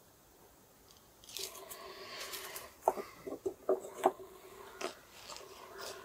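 Freshly sharpened knife blade cutting: a short hissing slice, then about half a dozen crisp crunching snaps over two seconds as the edge shaves wood.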